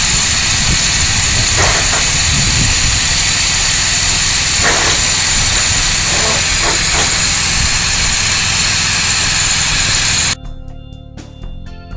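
Electric arc welding on a steel gate, a loud steady hiss with no clear pitch, cut off suddenly about ten seconds in; music plays briefly after it.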